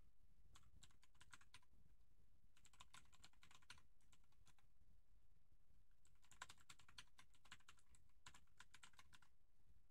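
Faint typing on a computer keyboard, in four short bursts of quick keystrokes with pauses between them.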